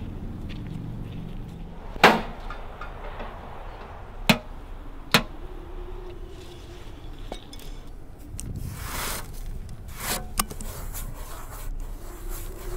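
A handful of sharp knocks of a hard object striking debris, the loudest about two seconds in, two more a little after four and five seconds, then a short whoosh near nine seconds and two lighter knocks just after ten, over a faint low hum.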